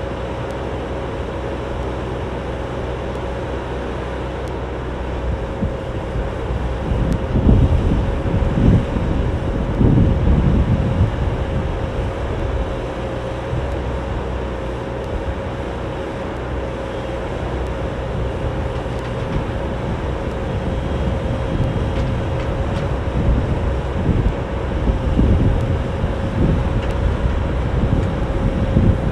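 Cat 304D mini excavator's diesel engine running steadily with a constant whine over its drone. Louder low rumbling swells come twice, a few seconds in and again near the end.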